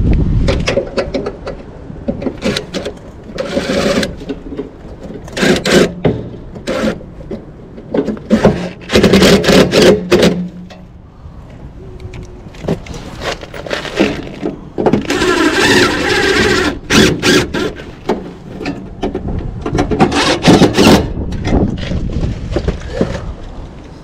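DeWalt 20V cordless impact driver with a long extension bit running in several short bursts, amid clicks and clatter of tools and parts being handled.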